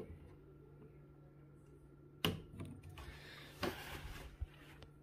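Sharp clicks from handling a newly installed over-the-range microwave, two of them about a second and a half apart with a brief rustle around them, then a soft low knock, over a faint steady hum.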